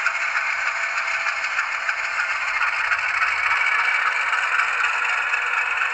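Rapido HO-scale diesel locomotive rolling along the track, its small onboard speaker playing a steady, thin diesel engine sound with no low end, mixed with running noise from the model's wheels and drive.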